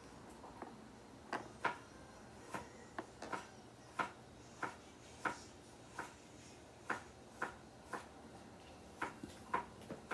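Light, irregular clicks and taps, about one or two a second, from hands handling and fitting together a small Kinder Joy plastic toy.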